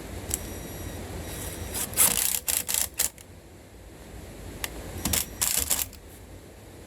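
Screws being driven to fix a door latch assembly into the edge of a slab door. There are two clusters of short, sharp clicks, about two seconds in and again about five seconds in.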